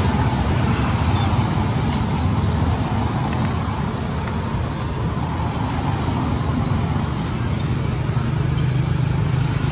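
Steady low rumble of road traffic, with a couple of faint short high chirps.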